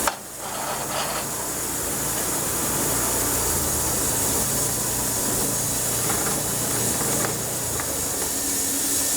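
Sawmill running: a steady engine hum under a loud, even hiss.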